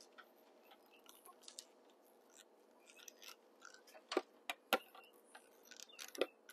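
Faint clicks, ticks and scrapes of stiff electrical wires and a metal fitting being handled, with a few sharper knocks about four and six seconds in, over a faint steady hum.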